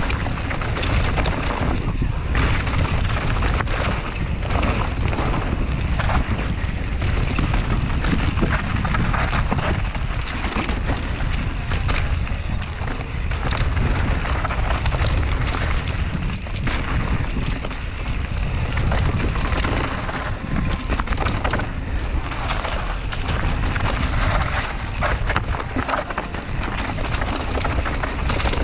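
Wind buffeting the microphone of a camera riding along on a mountain bike, with a steady low rumble and many quick knocks and rattles from the bike going over rough trail.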